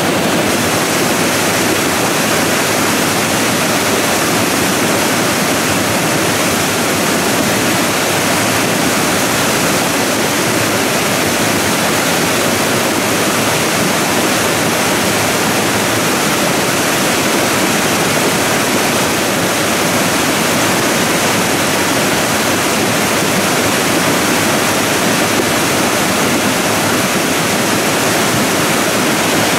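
Debris flow of muddy slurry and rock surging down a moraine channel, a steady, loud rushing noise.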